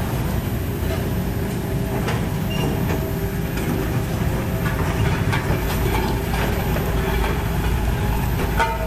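Heavy diesel construction machinery running steadily with a deep rumble, with occasional clanks.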